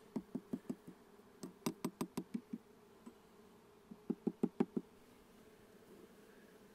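Three quick runs of light knocks, about five a second, from a metal hive tool rapping on the wooden frames of a beehive, with a single knock between the second and third runs. Under them, the faint steady hum of honeybees.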